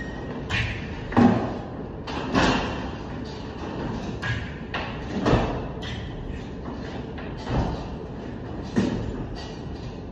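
Irregular knocks and scrapes of hand plastering work on a ceiling from a metal rolling scaffold, every second or so, with a short echo after each in a large hard-walled room.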